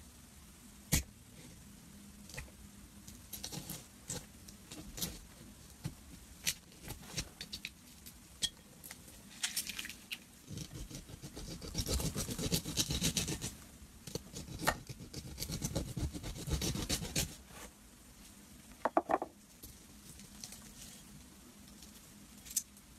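Thick glitter slime being poked and pressed in a bowl, giving scattered sharp clicks and pops. A knife drawn through it in the middle brings a denser run of crackling, and there is a short squelch about three-quarters of the way through.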